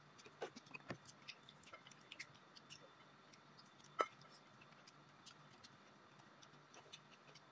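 Quiet eating sounds of people eating crispy fried chicken and rice by hand: faint scattered clicks and smacks of chewing and fingers working the food, with one sharper crunch about four seconds in as a piece is bitten. A faint low hum runs underneath.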